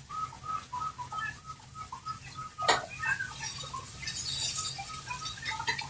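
Cockatiel sounding an alarm: a quick, faint series of short beeping calls, about three a second, with one sharp click a little under halfway through.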